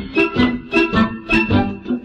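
Instrumental music from a 1962 children's singing-games record: a tune played in short, evenly spaced notes, about four a second.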